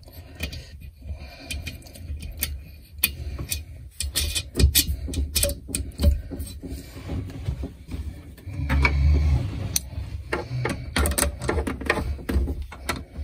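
Irregular clicks, knocks and rattles of hand work with tools and parts while the heater is being fitted in a cramped locker. A heavier, low rumbling thump comes about nine seconds in.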